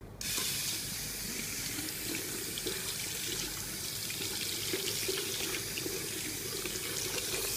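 Tap water running onto a hand and splashing into a ceramic washbasin. It comes on about a quarter second in, then flows steadily.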